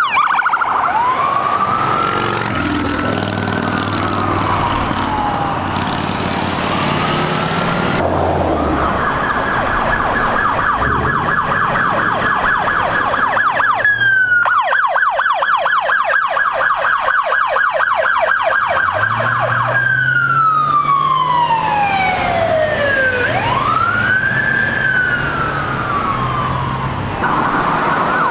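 Electronic sirens of passing emergency vehicles responding code 3. A slow wail rises and falls for the first few seconds, then switches to a rapid yelp from about 8 to 20 seconds, briefly broken near the middle. It goes back to slow wailing sweeps, and the yelp returns near the end, over the engine rumble of passing traffic.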